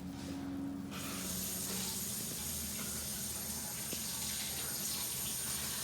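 Water running steadily from a tap, starting about a second in.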